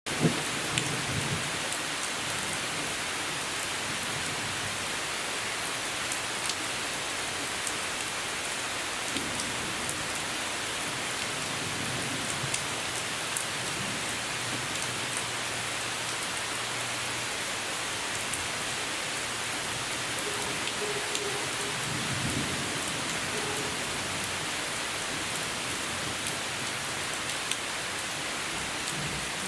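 Steady rainfall, a dense hiss of drops with individual drops pattering close by. Low rumbles of distant thunder come and go underneath, the clearest about twenty-two seconds in.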